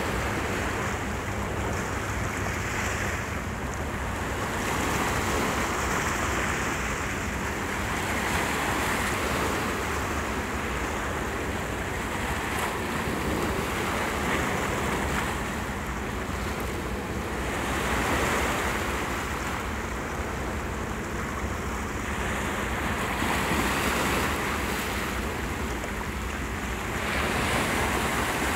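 Small sea waves washing over shoreline rocks, swelling and falling back every few seconds, with wind rumbling on the microphone.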